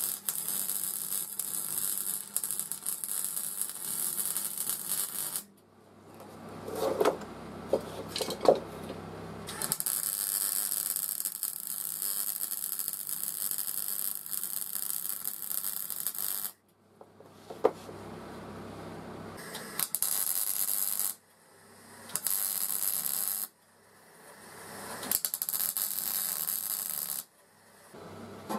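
Electric arc welding on steel: the arc crackles in five bursts of a few seconds each with short pauses between, and a few sharp knocks in the first pause.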